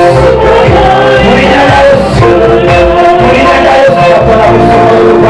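Loud gospel music with voices singing over a bass line.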